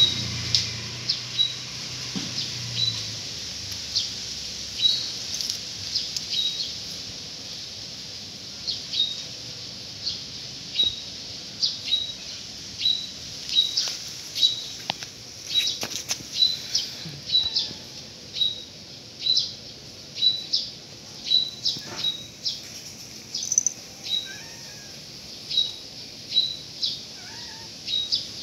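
A small bird chirping over and over, a short high chirp roughly once or twice a second, with a few clicks of a cat crunching dry kibble.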